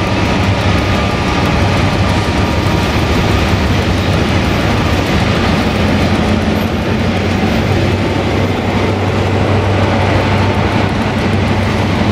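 Train running at the station: a loud, steady rumble with a low hum.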